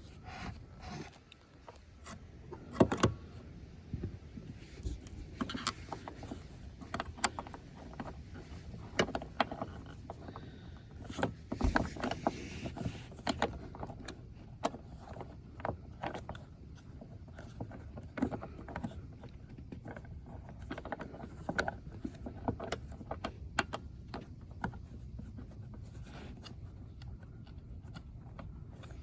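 Irregular clicks, knocks and rubbing of hand-handled plastic seatbelt buckle and trim parts being fitted into place, with a few sharper knocks.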